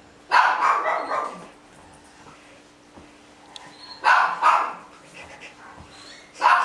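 Dogs barking in play while tugging a fabric flying disc between them: three loud bouts, one about half a second in, a double one around four seconds in, and a short one near the end.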